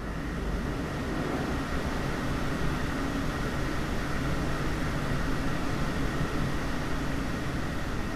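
A steady mechanical whirring with a faint hum running under it.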